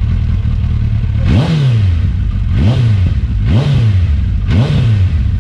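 First-generation Suzuki Hayabusa's 1299 cc inline-four idling through a Two Brothers Racing aftermarket exhaust. The throttle is blipped four times, each rev rising and dropping back to idle in under a second.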